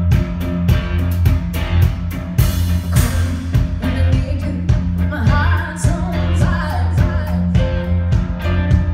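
Live rock band playing with a steady beat: electric guitar, keyboard and heavy bass, with a cymbal crash about two and a half seconds in. A woman's amplified voice comes in singing about five seconds in.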